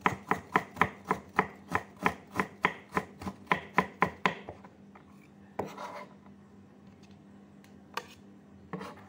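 A Chinese cleaver chopping ginger on a thick wooden chopping block: an even run of sharp knocks about four a second that stops after about four seconds. A few scattered scrapes and taps of the blade on the board follow.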